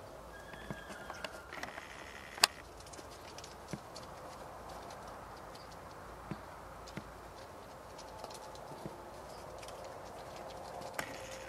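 Roe deer moving about on straw-covered ground: scattered light clicks and knocks, with one sharp crack about two and a half seconds in.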